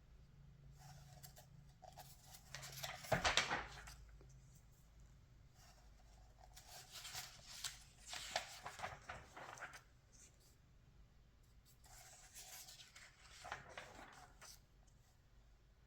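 Glossy magazine pages being handled and turned, rustling in three separate spells, with a soft thump of paper about three seconds in.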